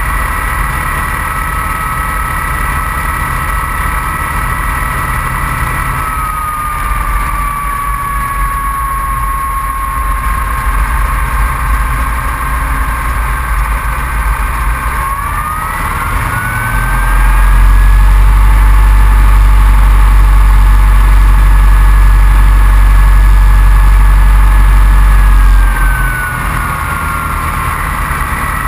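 Open-cockpit biplane's piston engine and propeller running while it taxis, with a high whine that dips and then rises in pitch. From a little past halfway, for about eight seconds, a much louder deep rumble and buffeting from the engine and propeller blast covers everything else.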